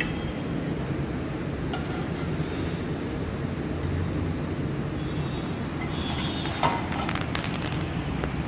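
Metal spatula tapping against a ceramic serving plate as fried tikkis are set down, a few light clinks with the sharpest about two-thirds of the way through, over a steady low background rumble.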